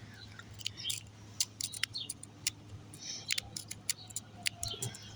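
Wave rake being worked in a HyperTough padlock's keyway: a run of light, irregular metal clicks, several a second, as the rake strikes the pin tumblers.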